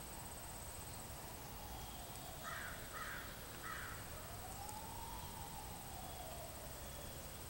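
Faint, distant emergency siren wailing, its pitch slowly rising and falling about every four seconds, over a steady high insect trill. Three short calls come close together around the middle.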